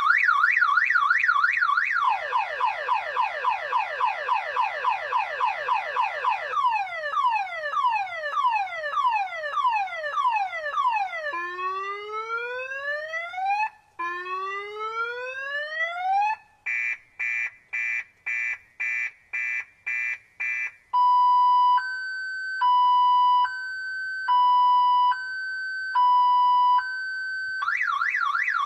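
Car alarm siren cycling through its tone patterns: a fast warble, then rapid falling chirps, slower falling sweeps, two long rising whoops, a run of quick beeps, and a two-tone high-low wail, returning to the warble near the end.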